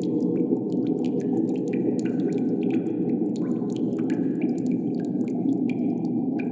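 Cave wind ambience: a steady, low rush of wind, with water drips plinking irregularly over it, several a second.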